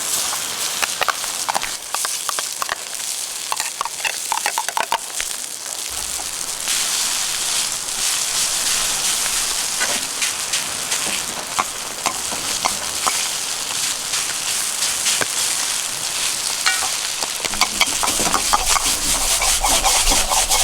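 Food sizzling in a wok over a wood campfire, with scattered sharp clicks throughout. The sizzle grows louder about six seconds in.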